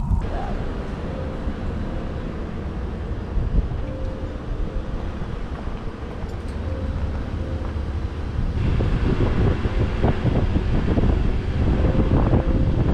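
A vehicle driving, with a steady low road rumble and wind on the microphone. It grows louder and brighter about two-thirds of the way through.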